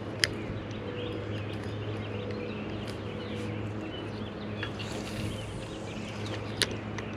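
Small birds chirping over a steady low hum, with two sharp clicks, one near the start and one near the end.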